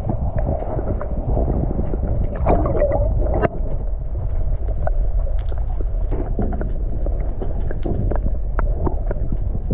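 Water gurgling and sloshing around an action camera held underwater, a steady low rumble with many scattered bubbling pops and clicks.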